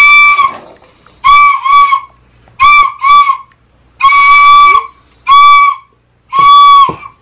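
A teal plastic toy recorder being blown by a small child: a series of about eight shrill toots, all on the same high note, some short and in quick pairs, others held for about half a second.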